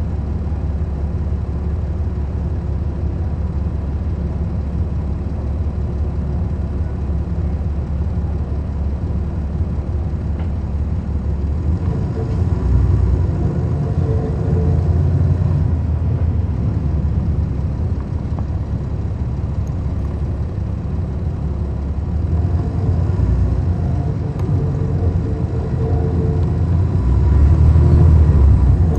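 Cummins ISL9 diesel engine of a 2011 NABI 40-SFW transit bus, heard from inside at the rear seats, running with a steady low rumble. It grows louder, with a higher whine added, about twelve seconds in and again in the last few seconds.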